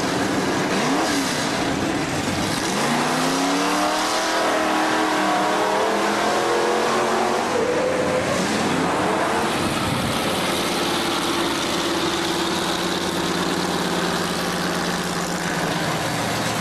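An engine revving, its pitch rising and falling several times, then settling into a steady run for the last few seconds.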